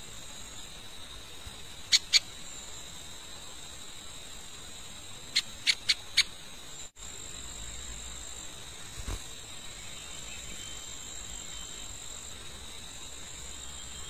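Steady high-pitched insect chorus, two even tones held over a faint hiss. Sharp clicks cut through it: two about two seconds in, then four quick ones a few seconds later.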